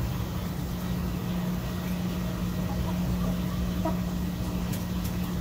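Small electric motor of an automatic chicken coop door running steadily with a low hum, sliding the door shut after its light sensor is covered.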